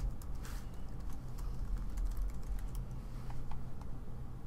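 Typing on a computer keyboard: irregular key clicks as a username and password are entered, over a low steady hum.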